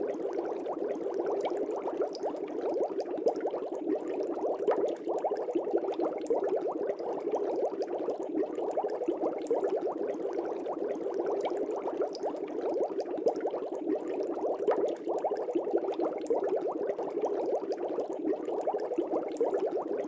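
Air bubbles rising steadily through aquarium water, a dense, even bubbling made of many small pops.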